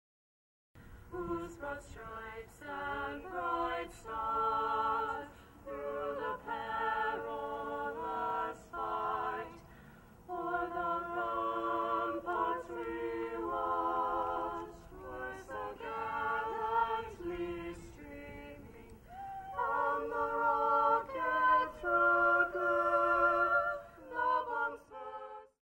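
Unaccompanied singing: voices carrying a slow melody with long held notes and vibrato, without instruments.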